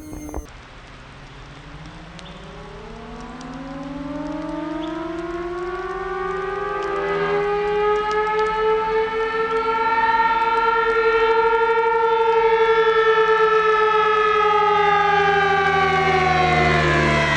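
Dive siren on a radio-controlled model dive bomber, wailing as it rises steadily in pitch and loudness for about ten seconds, holding near its top, then starting to fall near the end.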